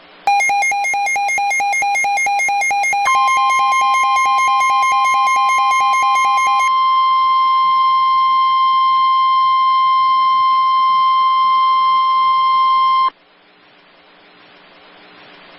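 Emergency alert tones. A rapidly pulsing electronic beep starts just after the beginning. About three seconds in, the steady NOAA Weather Radio warning alarm tone joins it. The beeping stops a little past six seconds, and the steady tone holds about ten seconds before cutting off sharply.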